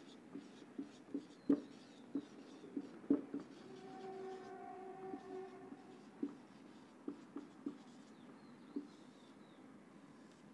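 Marker pen writing on a whiteboard: irregular short taps and scratches as the letters go on, the sharpest strokes about a second and a half and three seconds in.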